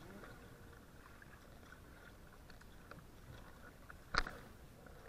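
Kayak being paddled on calm water: faint water noise and small drips, with one sharp knock about four seconds in.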